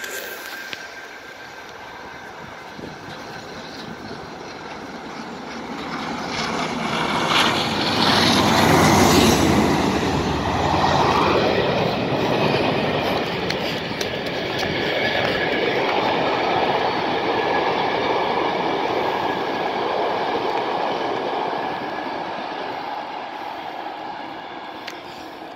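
Trains passing close by on the main line: an electric Pendolino and a charter train double-headed by two Class 47 diesel locomotives with their Sulzer V12 engines. The rumble builds to its loudest, with a deep engine note, about nine seconds in, stays up as the coaches clatter past, and fades away near the end.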